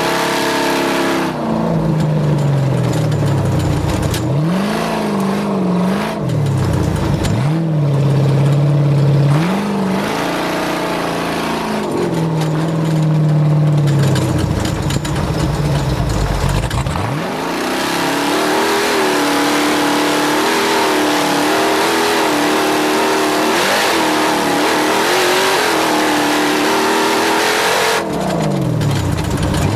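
A vehicle engine revving, its pitch falling away sharply and climbing back several times, then holding higher with small rises and dips through the second half.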